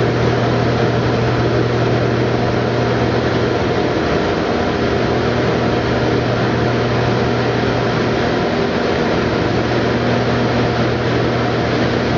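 Shark light aircraft's engine and propeller droning at a steady pitch, heard inside the cockpit, over a constant rushing noise.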